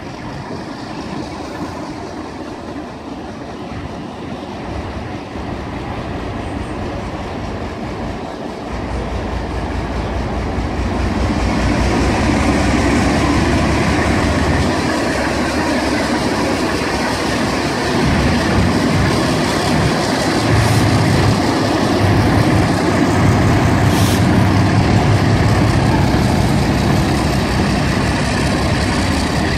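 Alco diesel locomotive 4490 pulling out under power, its engine rumble growing steadily louder as it approaches and passes, with the wheels of the following carriages rolling over the track.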